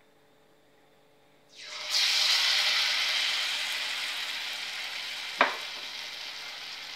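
Batter-coated chapati pieces dropping into hot oil and sizzling, starting suddenly about a second and a half in and slowly settling. One sharp click near the end.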